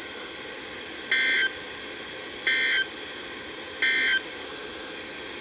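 Three short end-of-message data bursts from a NOAA Weather Radio SAME encoder, the raspy two-tone digital squawks that close an Emergency Alert System warning. They come about a second and a half apart over a steady radio hiss.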